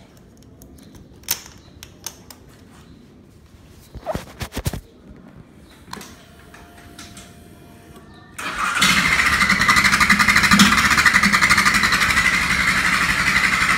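Clicks and knocks of the key and handlebar switches, then, about eight seconds in, a Honda XRE 300's single-cylinder engine starts and runs steadily.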